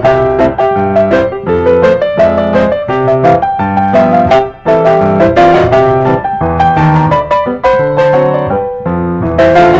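Piano music: a steady stream of struck notes and chords.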